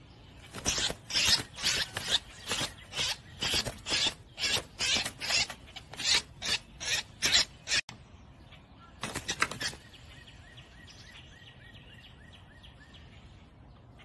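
Rhythmic rasping scrapes, about two a second, that break off suddenly. A brief quicker cluster of scrapes follows, then faint high chirps.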